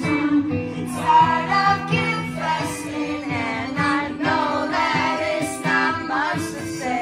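Live pop-rock song: a woman singing into a microphone over a strummed acoustic guitar, amplified through a small PA.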